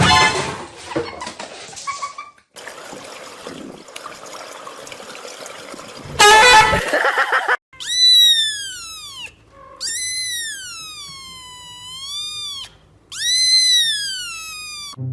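A pet animal's three long, high cries, each rising and then falling in pitch, in the second half. Before them comes a stretch of mixed noise with a short, loud burst about six seconds in.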